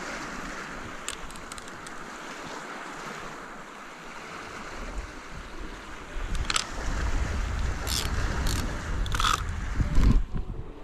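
Sea waves washing over rocks. From about halfway, wind buffets the microphone, with a few sharp clicks and a loud knock near the end.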